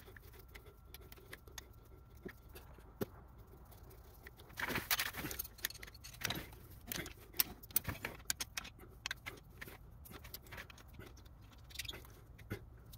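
Metal parts clinking, knocking and rattling as a cast turbocharger and exhaust-manifold assembly with its oil and coolant lines is handled and turned over on a concrete floor. There is a flurry of small knocks and clinks about a third of the way in, then scattered clicks that thin out.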